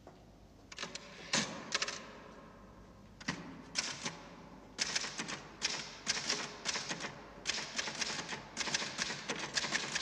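Typewriter keys clacking in quick, irregular bursts of typing, with short pauses between the runs.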